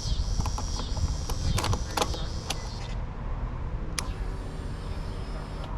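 Kawasaki Ninja 650's parallel-twin engine idling steadily, with a few light clicks and taps over it.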